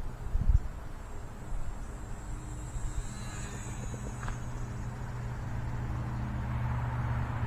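Gusty wind rumbling on the microphone. Above it is a faint high whine from the micro RC plane's small electric motor and propeller, which swells and shifts in pitch about three to four seconds in as the throttle changes.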